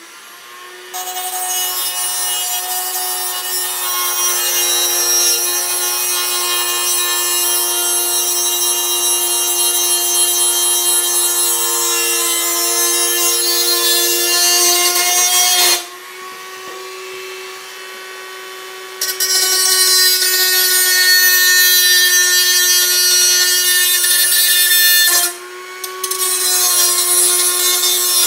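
Black+Decker rotary tool spinning a small cut-off disc through a tin can: a steady high motor whine under a harsh grinding hiss. The hiss drops out for about three seconds just past the middle, and again briefly near the end, as the disc lifts off the metal and the motor runs free.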